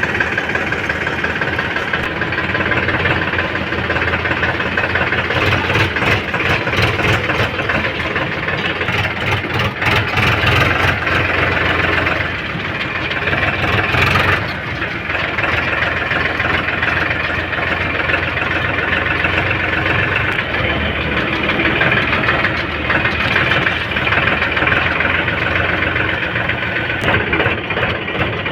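Diesel engine of a JCB 3DX backhoe loader running steadily while the machine works, with a few short knocks partway through.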